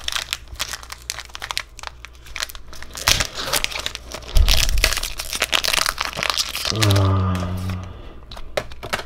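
A Pokémon card booster-pack wrapper crinkling and tearing in the hands as it is ripped open, with dense rustling throughout and a low thump about four and a half seconds in.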